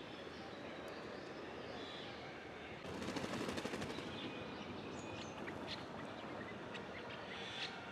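Outdoor ambience with a steady hiss and scattered short, high bird chirps; about three seconds in comes a rapid rattling burst of clicks lasting about a second.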